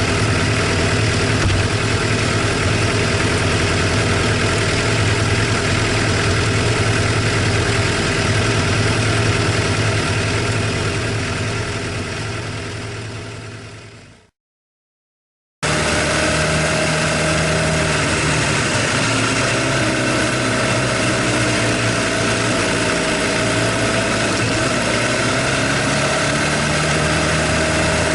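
Suzuki GSX-R750 inline-four engine idling steadily, with the tappet noise that the owner takes as a sign of wear and thinks may call for an engine overhaul. The sound fades out about halfway through, stops for about a second, then cuts back in at full level.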